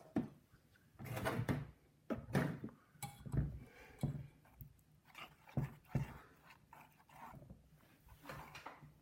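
Glue slime being stirred with a spoon in a bowl as Tide activator is mixed in: a run of irregular wet squelches and scrapes, about one or two a second.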